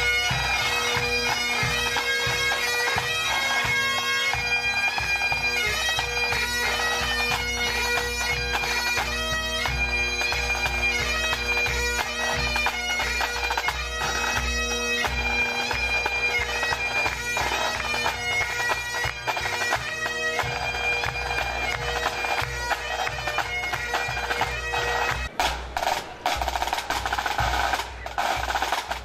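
Highland pipe band playing: the bagpipes' steady drones under the chanter melody, with snare, tenor and bass drums beating time. About 25 seconds in the pipes stop and the drum corps carries on alone with crisp snare strokes.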